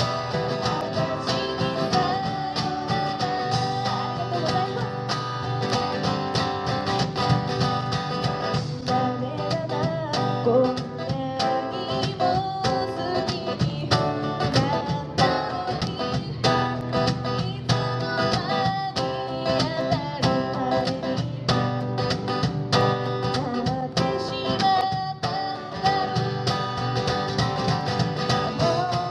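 Live acoustic song: an acoustic guitar strummed steadily, with a voice singing over it.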